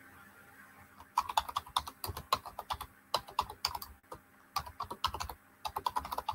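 Typing on a computer keyboard: quick runs of key clicks starting about a second in, with a brief pause near the middle.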